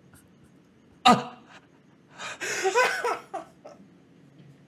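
Hearty laughter: a sudden burst about a second in, then a longer stretch of laughing from about two to three and a half seconds in.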